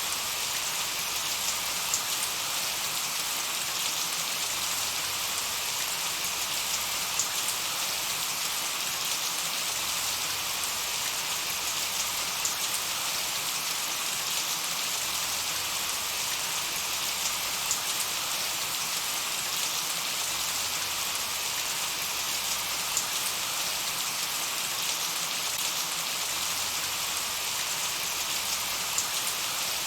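Gentle, steady rain falling: an even hiss with scattered faint ticks of individual drops.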